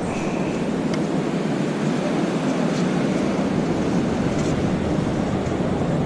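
Steady rushing noise of surf breaking on the beach, with a brief faint high beep just after the start.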